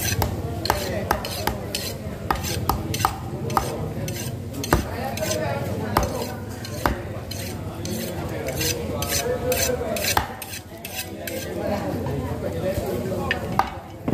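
A knife cutting and scraping through a large mullet on a wooden chopping board, with frequent sharp, irregular taps of the blade against the board over a steady low background noise.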